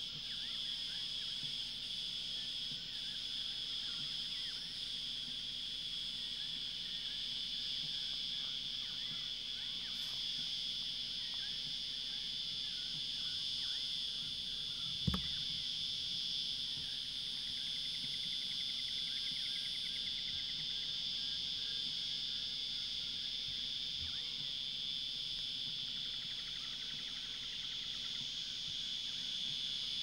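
A steady, high-pitched insect chorus, with a single dull thump about halfway through.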